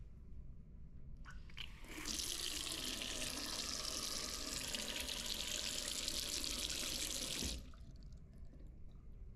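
Bidet tap turned on, water running in a steady stream into the ceramic bowl for about five and a half seconds, then shut off abruptly.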